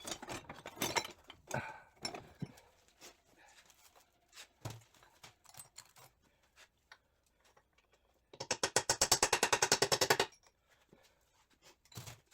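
A few light metal clicks and taps from work on a transmission, then about eight seconds in a power tool hammers rapidly for about two seconds, roughly fifteen blows a second, driving a gearbox shaft.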